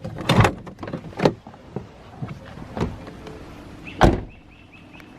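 Car door opened and shut, with several knocks and a loud thump about four seconds in.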